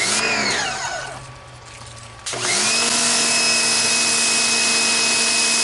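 Topshak TS-HPW4 electric pressure washer: the motor winds down with a falling whine as the trigger is let go. A little over two seconds in, it starts again abruptly and runs with a steady whine under the hiss of water spraying from a wide fan-spray tip.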